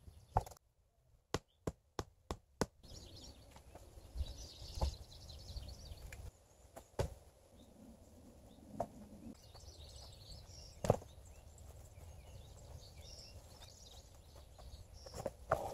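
Sharp wooden knocks of logs and poles being set and tapped into place on a pole shelter frame: one loud knock, then a quick run of five about three a second, then single knocks every couple of seconds.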